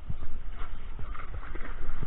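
Footsteps crunching on a beach of shells and pebbles, a few uneven knocks over a constant low rumble.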